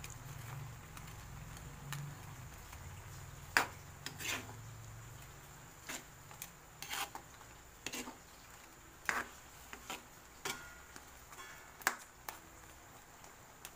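Spatula stirring shrimp in a metal wok, scraping and knocking against the pan in short clicks every second or so, with a low hum during the first few seconds.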